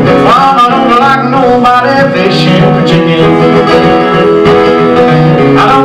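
Country song with guitar, played as background music.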